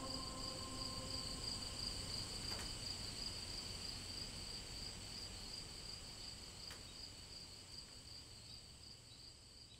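Steady chorus of crickets trilling, gradually fading out, with the last notes of soft ambient music dying away about a second in.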